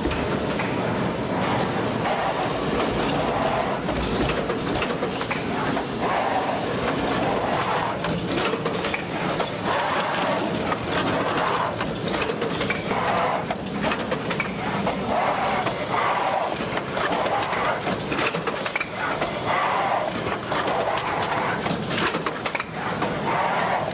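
Automated rigid-box forming machinery running: a steady mechanical noise with a dense, irregular clatter of clicks and knocks.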